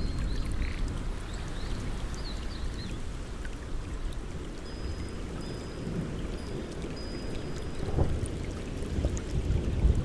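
Steady rain falling on leaves under a low rumble. Faint high chirps sound in the first few seconds and again around the middle.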